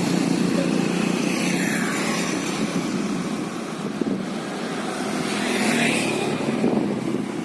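A large bus's engine running with a steady low drone, dipping slightly in loudness midway and rising again near the end.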